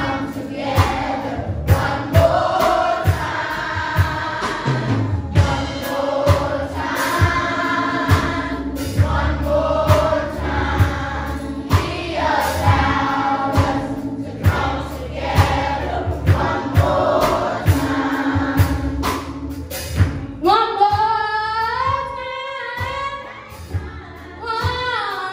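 Church choir of children and adults singing a gospel song over an accompaniment with a steady beat and low held bass. About twenty seconds in the accompaniment drops away and a single voice carries on alone.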